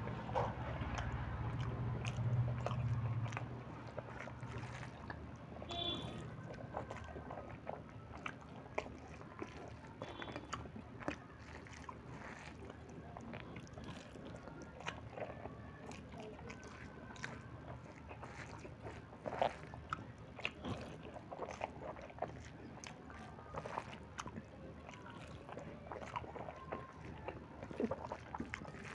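Close-up chewing and biting of a person eating rice, dal and onion saag by hand, with many small, irregular wet clicks of fingers mixing food on a steel plate. A low hum runs through the first three seconds.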